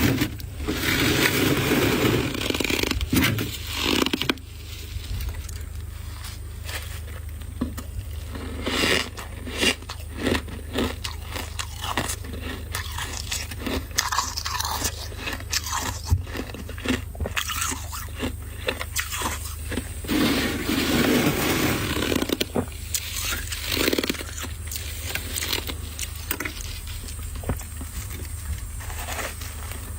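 Freezer frost being scraped loose and pressed into chunks, with repeated crunching and scraping strokes.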